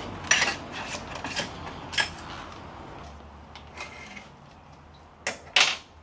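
Metal tools and parts clinking and clanking in scattered sharp knocks, as a motorcycle wheel is worked on. The two loudest come near the end, one leaving a brief metallic ring.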